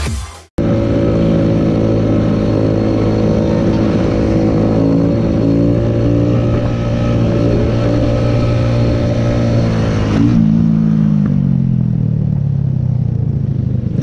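Motorcycle engine running at a steady cruise, then winding down as the rider rolls off the throttle from about ten seconds in, its pitch falling gradually as the bike slows.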